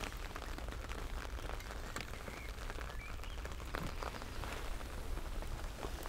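Steady rain falling on a fishing umbrella overhead and on the lake, heard as a constant hiss with many separate drop ticks.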